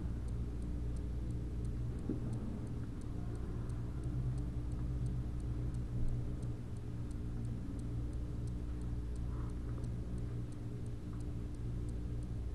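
Background room tone: a steady low hum with faint, evenly spaced high ticks, a few each second.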